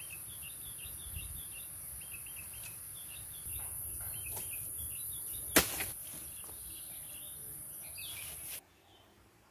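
Forest insects droning high and steady, with birds calling in quick repeated chirps and one sharp crack about five and a half seconds in. It all cuts off suddenly near the end.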